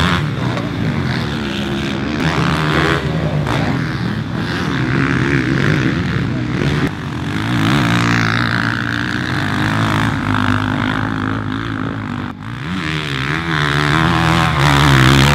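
Motocross bikes on track, engines revving up and down as they power through corners and past close by, with the pitch rising and falling again and again.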